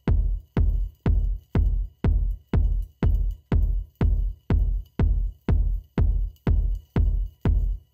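Background electronic music with a deep kick drum beating steadily about twice a second.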